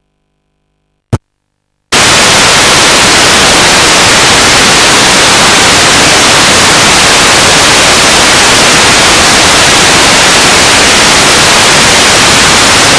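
Static hiss of an untuned analogue TV channel: a loud, even white-noise rush that comes in suddenly about two seconds in, after a moment of silence and a single sharp click.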